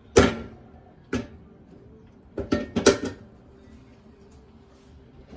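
Espresso machine portafilter knocked sharply against a knock box to empty the spent coffee puck: one loud knock, another about a second later, then a quick run of four or five knocks.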